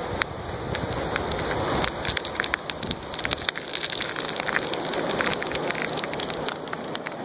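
Ocean surf washing over the beach as a steady hiss, with dense small crackling clicks running through it, most crowded in the middle.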